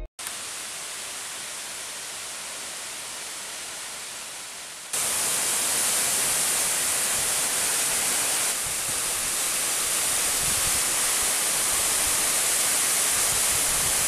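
Waterfall rushing steadily, without pitch or rhythm. The rush is quieter at first and turns suddenly louder and fuller about five seconds in.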